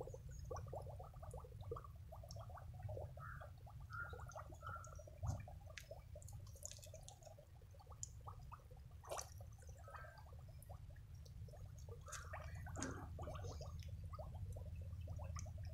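Faint gurgling and scattered bubbling pops as water from a garden hose floods a pot of potting soil and trapped air escapes up through the mud.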